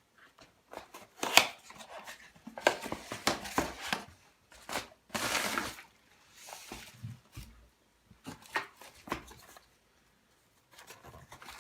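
Unpacking a small product box by hand: irregular clicks, taps and rustling of the packaging, with a longer rustle about five seconds in.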